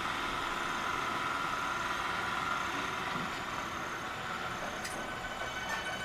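Dump truck's diesel engine running steadily at low revs as the truck creeps onto a flat river ferry, with a faint steady whine over it.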